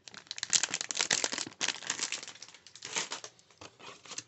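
Model kit packaging crinkling and rustling as it is handled, in dense irregular crackles. It is busiest in the first second and a half, with another flurry about three seconds in.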